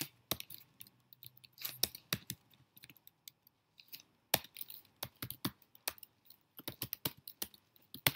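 Typing on a computer keyboard: irregular clicking keystrokes in short runs, easing off for about a second partway through and then a faster flurry near the end.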